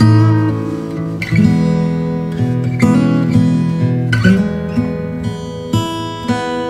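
Background music: an acoustic guitar playing plucked and strummed chords, with a new chord struck about every one to one and a half seconds.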